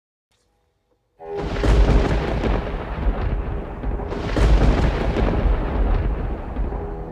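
Thunder sound effect: a loud, deep rolling rumble that starts suddenly about a second in and swells twice, with held musical tones underneath.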